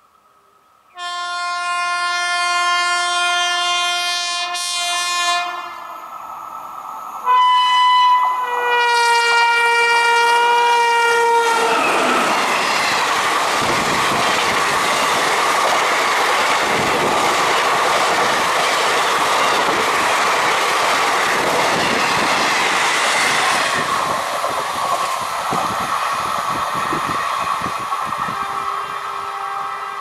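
Indian Railways electric locomotive in WAP-5 livery sounding its horn in two long multi-tone blasts, the first about a second in and the second about seven seconds in. Then the express coaches pass close by, a loud steady noise of wheels on rails that fades from about halfway through. A fainter horn sounds near the end.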